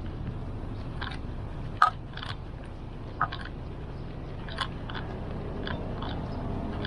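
Public market background: a steady low hum with scattered short clicks and knocks at irregular intervals.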